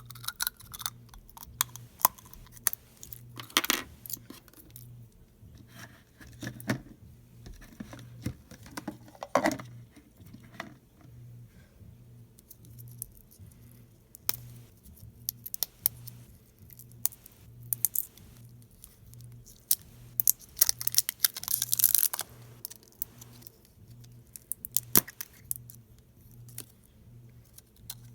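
Slime being squeezed and worked by hand, giving irregular sharp clicks and crackling pops, with a denser burst of crackling about three quarters of the way through.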